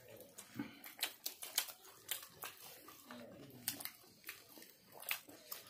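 Mouth sounds of people eating spicy fried chicken lollipops by hand: chewing and lip-smacking, an irregular run of short sharp smacks and clicks, several a second.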